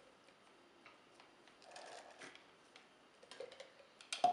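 Light clicks and taps of plastic toy lab pieces being handled, with a sharper knock near the end.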